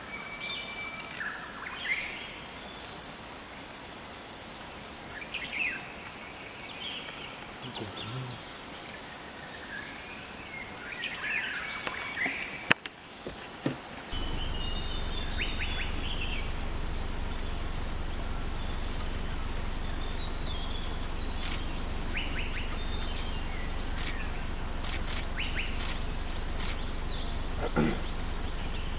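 Forest ambience: a steady high insect drone with scattered short animal calls. A sharp click comes about halfway through, and from then on a steady low rumble runs underneath.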